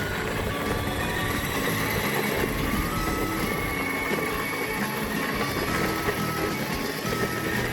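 Battery-powered Best Choice ride-on toy Jeep driving: a steady rumble of its electric motors and plastic wheels rolling on pavement. A simple melody of short, stepping notes plays over it.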